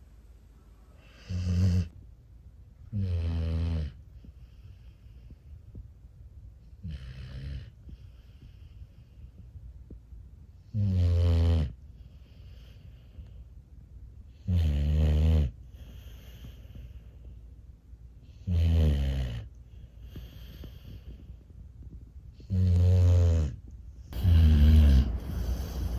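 Bully-breed puppy snoring in her sleep: about eight pitched snores, each half a second to a second long, coming roughly every four seconds with faint breaths between, the last two close together near the end.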